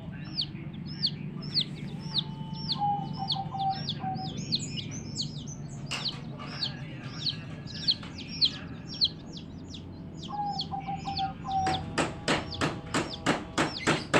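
Baby chicks peeping over and over, short high calls that fall in pitch, about two a second. Near the end comes a quick run of sharp clicks, about four a second.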